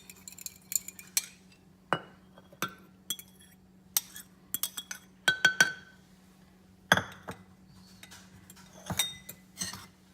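Kitchenware clinking: a dozen or so sharp, irregular taps and clinks of utensils against a ceramic mug and glass dishes, several ringing briefly.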